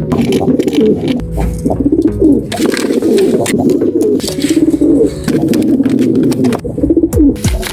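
Pigeons cooing, with phrase after phrase of low, pulsing coos running on through the whole stretch, mixed with scattered clicks and knocks.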